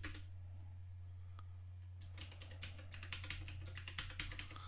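Typing on a computer keyboard while entering a password: a few keystrokes at the start, a pause of nearly two seconds, then a quick run of keystrokes. A faint steady low hum sits underneath.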